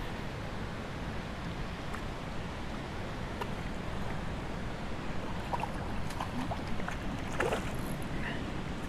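Steady rush of flowing stream water, with a few faint splashes from a hooked trout thrashing at the surface.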